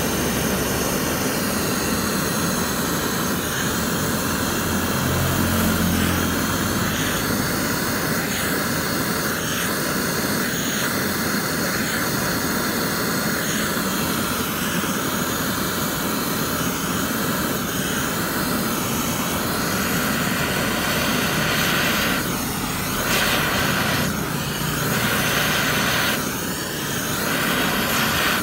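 Handheld gas blowtorch flame burning with a steady loud hiss as it heats a titanium Gr5 bolt to heat-colour it. The sound wavers a little near the end as the flame is brought in close to the bolt.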